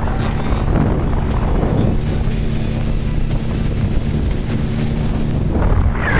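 Outboard motor running steadily as the boat travels at speed, with wind buffeting the microphone and water rushing past the hull.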